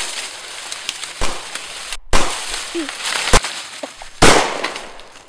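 Four loud gunshot bangs about a second apart, each a sharp crack with a short fading tail.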